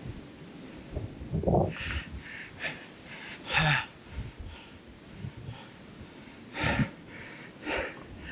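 A man breathing hard and unevenly, with several loud, hissing breaths, winded from climbing a steep road on foot.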